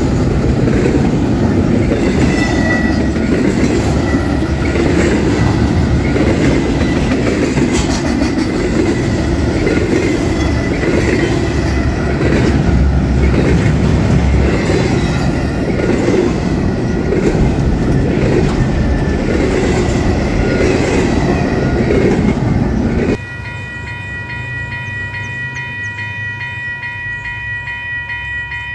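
Train rolling past close by, wheels beating over the rail joints about once a second with a faint steady squeal. About 23 seconds in it cuts abruptly to a locomotive air horn sounding a steady multi-note chord.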